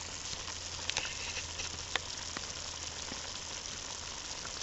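Stainless steel roaster of meat, broth and vegetables simmering over an open wood fire: a steady sizzle, with a few sharp crackles about one and two seconds in.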